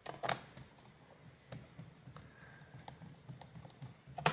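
Small clicks and taps from hands and a screwdriver working at a corner of a Dell Inspiron 3585 laptop's metal bottom cover as it is screwed back on. Two sharper clicks come at the start, then scattered light ticks, and a louder click just before the end.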